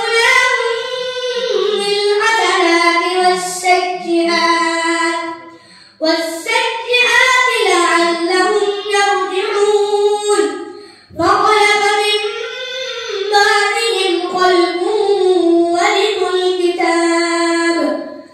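A boy reciting the Quran in the melodic, drawn-out tajweed style into a microphone. There are three long phrases with short breaks for breath between them.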